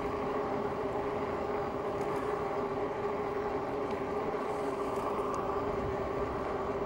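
Magicycle electric bike under way at a steady speed: an even hum, with road and wind rumble underneath.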